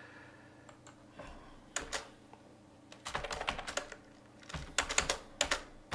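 Typing on a computer keyboard: a few keystrokes about two seconds in, a quick run of keys around three seconds in, and another run near the end.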